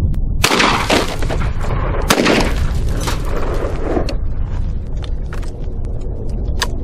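Two shots from a 12-gauge shotgun loaded with mini shells, about a second and a half apart, each followed by a long echo. A sharp click comes near the end.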